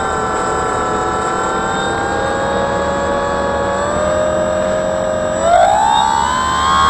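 Drone's motor and propeller whining, picked up by its own onboard camera. The pitch holds fairly steady, then rises sharply about five and a half seconds in as the motor speeds up.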